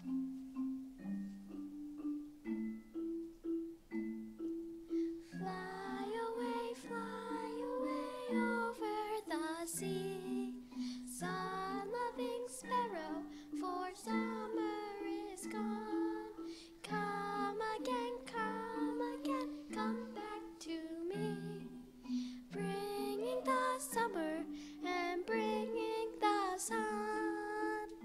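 School mallet instruments such as xylophones play a repeating pattern of short low notes. About five seconds in, children's voices join with a wavering higher melody. The piece of original incidental music ends just at the close.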